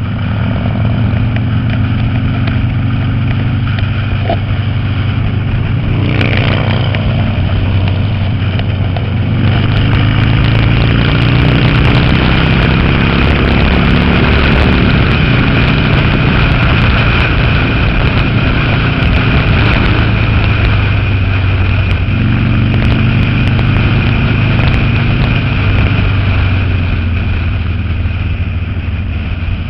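Cruiser motorcycle engine running at road speed, its note climbing a few seconds in as it pulls, with wind rushing over the microphone that grows louder from about ten seconds in.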